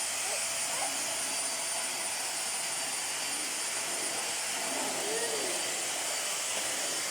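Kitfort KT-523-3 vacuum cleaner running steadily: a constant rushing hiss with a thin high motor whine over it.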